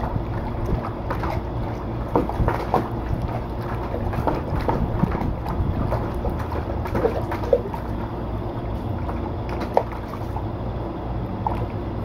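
A dog wading and pawing in a shallow plastic kiddie pool, its feet splashing and sloshing the water in irregular splashes, over a steady low rumble.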